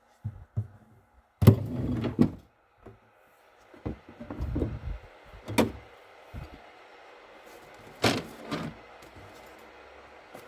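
Kitchen handling clatter: a series of knocks and bumps, the loudest a clattering run about a second and a half in, with single sharp knocks near the middle and about eight seconds in. A faint steady noise sets in after about six seconds.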